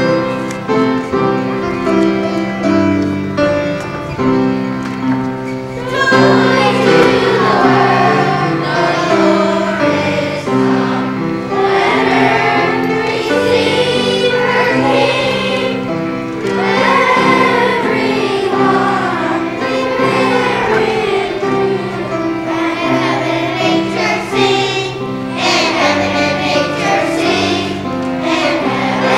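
Children's choir singing a song with instrumental accompaniment. The accompaniment plays alone at first, and the children's voices come in about six seconds in.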